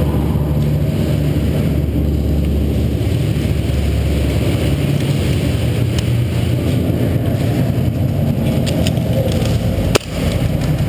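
Steady, muffled low rumble of movement and handling noise picked up by a helmet-worn GoPro Hero HD in its housing as the wearer walks, with a few light clicks and one sharp knock near the end.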